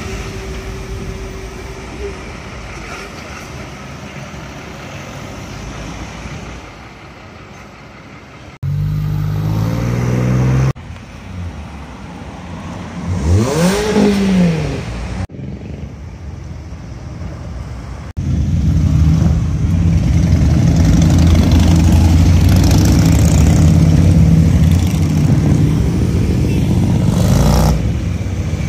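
Road vehicle engines passing close by, in several short cuts: a military truck's engine hum at the start, one engine revving up and down around the middle, and loud steady engine noise through the last ten seconds.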